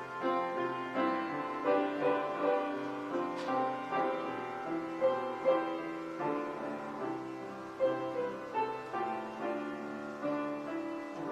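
Piano playing a slow instrumental piece, with melody notes over held chords.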